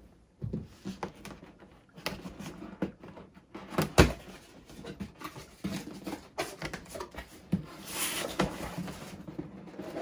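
A cardboard toy box being opened and its contents handled: scattered clicks, rustles and knocks, the loudest a sharp knock about four seconds in, with a longer rustle near the end.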